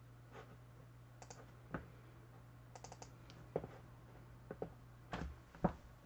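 Faint, irregular clicks of a computer mouse over a low steady hum.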